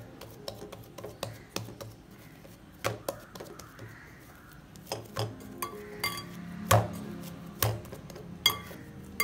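Paratha dough being kneaded by hand in a glass mixing bowl: irregular knocks and clinks against the glass, a few ringing briefly with a glassy tone, the loudest a little past the middle and near the end.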